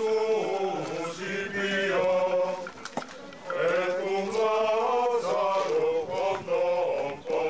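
A group of men chanting a plainchant-style melody together as one line of sung notes moving in small steps, with a short break between phrases about three seconds in.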